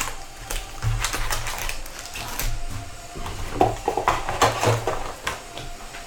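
Irregular scratching, clicking and rustling as the plastic seal and cardboard of a sealed trading-card box are cut and torn open.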